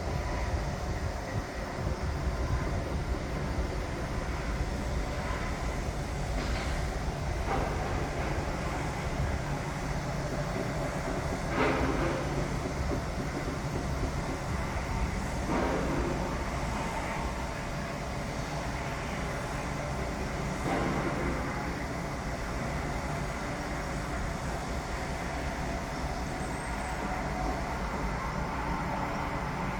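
Construction site noise: a steady low machinery rumble with a few sharp clanks, the loudest about twelve seconds in.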